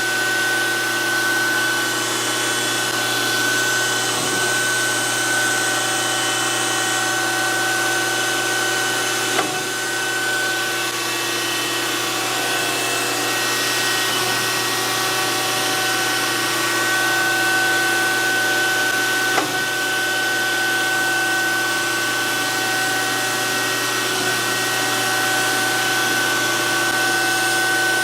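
DoAll hydraulic surface grinder running with its spindle whining steadily and the hydraulic pump humming. A short clunk comes about every ten seconds as the hydraulic table reverses at the end of its travel, and a hissing grinding sound rises and falls as the wheel passes over the work.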